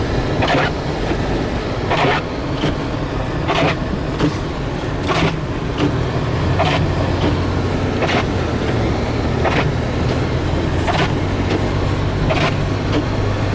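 Inside a moving car: steady engine and road drone, with a short swish repeating about every second and a half.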